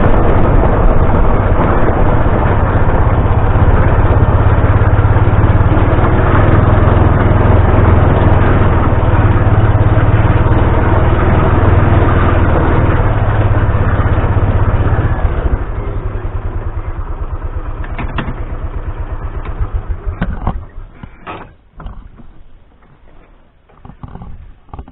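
A vehicle engine runs steadily and loud, drops to a lower idle with an even low pulse about fifteen seconds in, and is shut off about five seconds later. A few scattered knocks and clatter follow.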